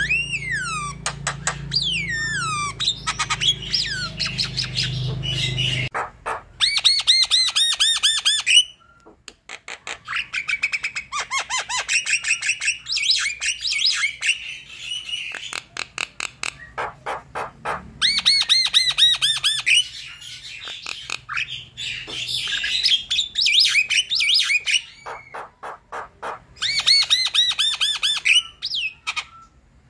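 Javan myna in full, nonstop song: a long chattering run of rapid repeated sharp notes and harsh squawks, mixed with whistled notes that glide up and down, coming in several fast runs of many notes a second.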